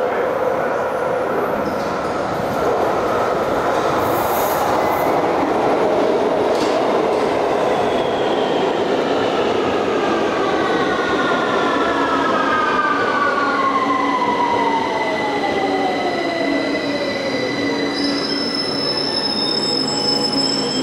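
London Underground 2009 stock train running into a deep-level platform and braking to a stop, wheels rumbling on the rails, with an electric whine that falls in pitch as the train slows. Once it has stopped, steady high tones from the train's equipment remain.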